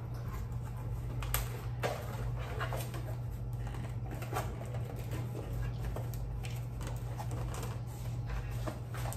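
Irregular light taps and scuffs of small cardboard gift boxes being handled and closed, over a steady low hum.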